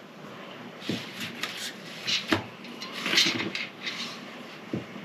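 Handling noises on a workbench: three light knocks of small objects being set down or bumped, with rustling and scraping between them.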